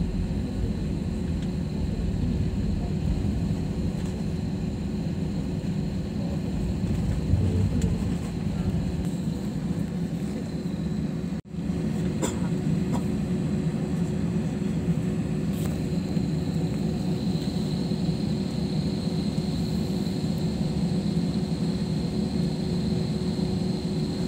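Steady rumble of a jet airliner taxiing, heard inside the passenger cabin, with a faint steady engine whine; a thin high whine grows louder past the middle. The sound cuts out for an instant about halfway.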